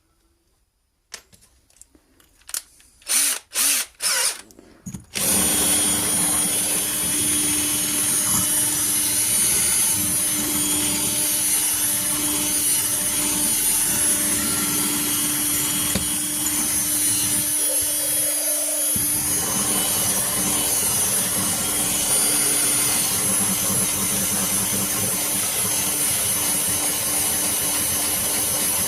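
Electric drill started with a few short blips of the trigger, then running continuously with a steady hum, boring a hole through a jam jar.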